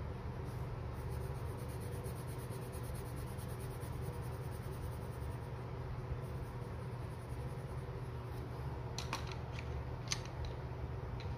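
Watercolour pencil scratching on paper in quick back-and-forth strokes as a swatch square is coloured in, over a steady low hum. Near the end come a few sharp clicks as the wooden pencils are handled.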